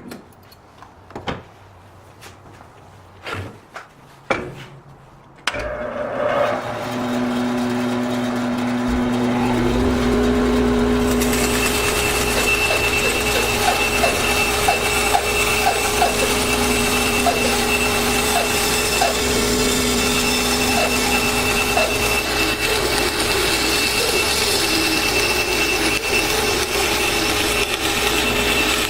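A few knocks of wood being handled, then a woodworking power tool is switched on, spins up over several seconds and runs steadily with a high whine. About eleven seconds in its sound grows fuller and noisier, as when the tool starts working wood.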